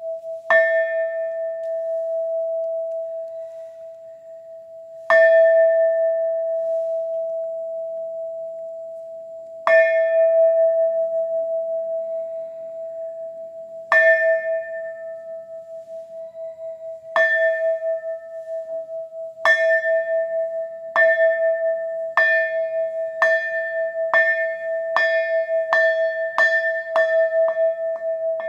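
Buddhist temple bell struck about fifteen times, the strikes starting about five seconds apart and quickening to less than a second apart near the end. Each strike rings on in a long steady hum.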